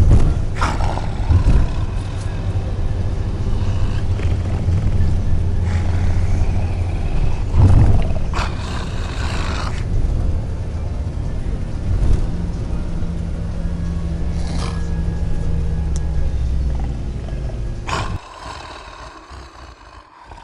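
Two men snoring, deep low snores running on and overlapping, with a louder, harsher snore about eight seconds in. The snoring drops away for the last couple of seconds.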